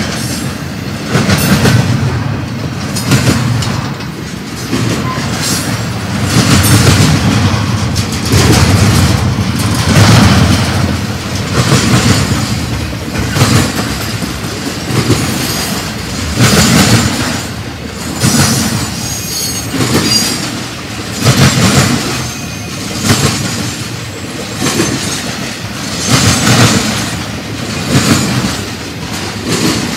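Intermodal freight cars rolling past at speed, their steel wheels clacking over the rail joints. The clatter swells and fades in a regular rhythm as each car goes by, with a faint high wheel squeal now and then.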